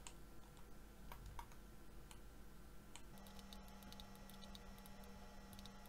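Near silence with faint, scattered clicks of a computer mouse and keyboard, and a low steady hum that comes in about three seconds in.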